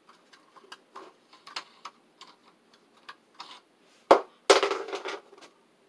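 Ring light parts being handled during assembly: scattered light clicks and taps, then a sharp loud knock about four seconds in, followed by a short rattling scrape lasting about half a second.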